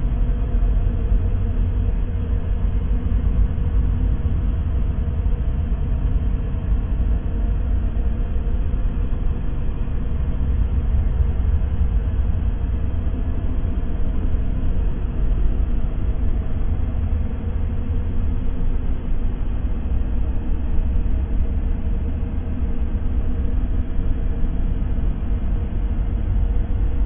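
Steady, unchanging ambient noise track sold as white noise for sleep, deep and dull, with most of its weight in the bass and a faint steady hum running through it.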